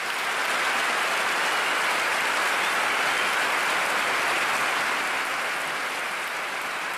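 Large crowd applauding, building up in the first second and slowly fading toward the end.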